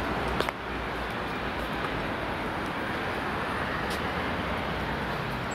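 Steady city street traffic noise, an even hiss with a low rumble underneath, and a faint click about half a second in and another about four seconds in.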